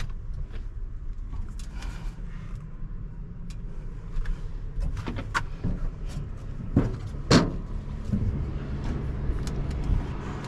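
Scattered knocks and clicks of someone moving about in a switched-off Cat 730 articulated dump truck cab and handling its door, the loudest a sharp knock about seven seconds in, over a low steady rumble.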